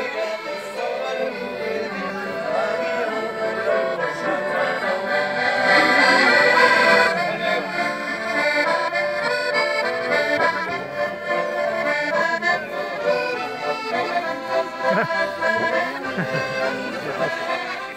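Two button accordions playing a lively bal-musette dance tune together, full and steady, swelling a little louder about six seconds in.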